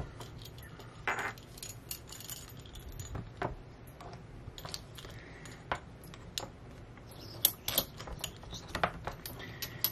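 Coax cable being pulled and wound by hand through a pair of stacked ferrite toroid cores, while the cable's metal connector knocks against the cores and desk. Irregular clicks and rubbing, the sharpest clicks near the end.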